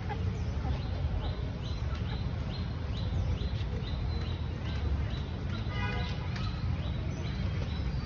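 Domestic chickens (a rooster and hens) clucking as they forage, with one louder pitched call about six seconds in. A short high chirp repeats about twice a second throughout, over a steady low rumble.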